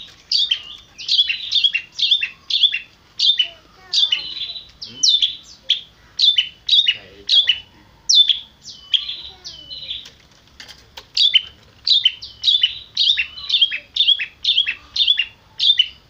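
Caged long-tailed shrike (cendet) calling a fast, loud series of short, high notes, each dropping sharply in pitch, about two a second: the mewing 'meong meong' call.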